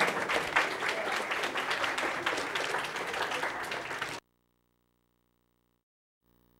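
Audience of students applauding, a dense patter of many hands clapping, cut off suddenly about four seconds in.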